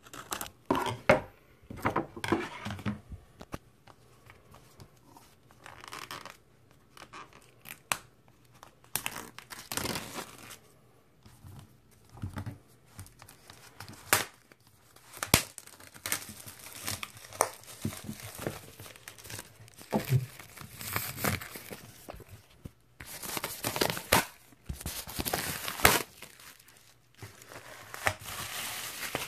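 Plastic shrink-wrap being torn and peeled off a vinyl LP jacket, crinkling in irregular bursts with a few louder rips.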